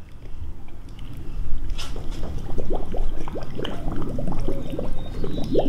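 Water splashing and gurgling as an inline leaf canister is pushed under the pool surface and air bubbles out of it, with a quick run of bubbling blips in the second half. The canister is being filled with water to purge the air before it is connected to the cleaner's suction.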